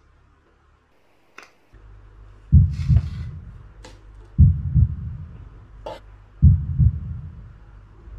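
Heartbeat sound effect: three double thumps, lub-dub, about two seconds apart over a low hum, starting about two seconds in after near silence, with a few faint clicks in between.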